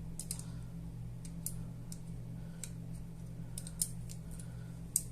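Scattered light clicks and taps of pliers and small trigger-pack parts being handled as the hammer spring's pin is worked into an airsoft MP5 trigger box, over a steady low hum.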